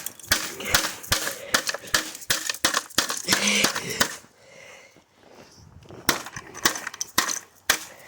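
Irregular sharp knocks and cracks of hard plastic from Dyson vacuum cleaner parts being smashed, a few a second, easing off about four seconds in and picking up again near the end.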